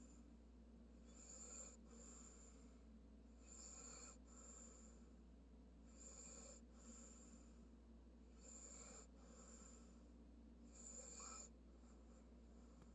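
Faint, slow snoring from a sleeping animal, about one breath every two and a half seconds, each breath drawn as a pair of short wheezy sounds.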